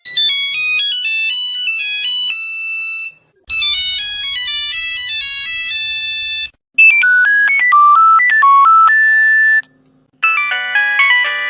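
Nokia mobile phone ringtones: short electronic melodies of clear, stepping notes, one after another, each about three seconds long with a brief silence between them.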